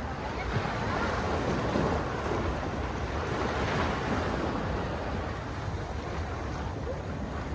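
Sea waves washing onto a beach, a steady rush that swells and eases, with wind buffeting the microphone.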